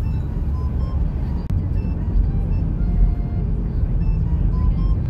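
Car driving on a snow-packed road, heard inside the cabin: a steady low rumble of engine and tyres. Light background music of short, scattered high notes plays over it.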